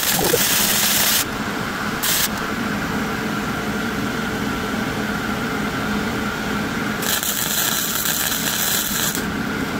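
Electric arc welding on steel: the arc's hiss runs for about the first second, flares briefly about two seconds in, then stops and strikes again about seven seconds in for about two seconds. A steady low hum carries on between the welds.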